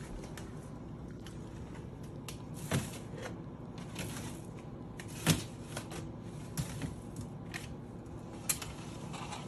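Containers, jars and bottles being handled and set down while a refrigerator is cleared out and reorganized: scattered knocks and clatters, the sharpest about three seconds in, in the middle and near the end, over a low steady hum.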